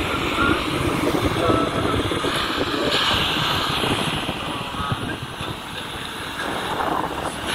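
Honda ADV155 scooter's single-cylinder engine running as it climbs a hill, mixed with heavy wind buffeting on the microphone from riding.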